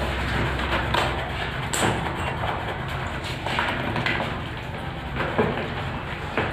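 Hand tools scraping and smoothing wet plaster of Paris on a ceiling: continuous rasping with scattered taps and knocks.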